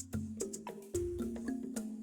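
Background music: a light tune of pitched notes over a steady beat of wood-block-like ticks.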